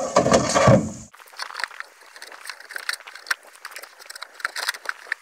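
Cut plastic 55-gallon drum piece being handled and pushed into place against a plastic drum pontoon: a loud scraping rustle for about a second, then light, irregular clicks and ticks.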